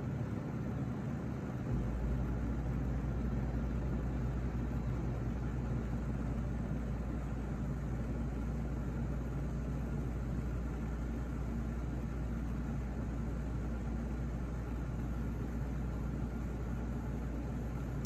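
Steady low machine hum with a rumble, which gets louder about two seconds in.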